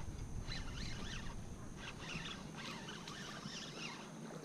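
Birds chirping in many short rising and falling calls, over a low rumble of wind on the microphone that drops away about two seconds in.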